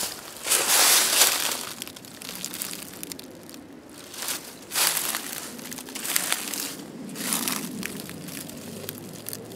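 Footsteps crunching through dry fallen leaves in irregular bursts, loudest about a second in.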